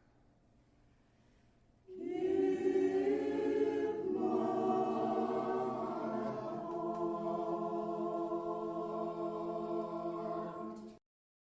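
Choir singing a slow passage in held chords, coming in after about two seconds of near quiet and cut off abruptly about a second before the end.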